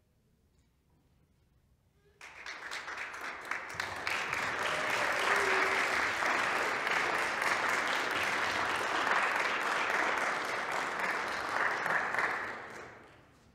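Audience applauding: the clapping breaks out about two seconds in, swells, holds steady, then dies away near the end.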